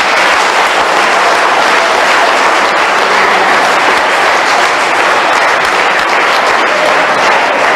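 A large audience applauding steadily, a dense continuous clapping.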